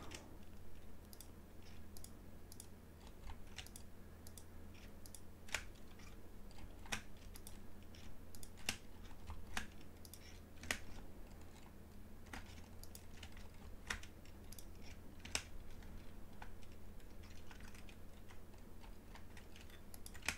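Scattered sharp clicks of a computer mouse and keyboard, roughly one every second, as objects are clicked and selected. A low steady hum runs underneath.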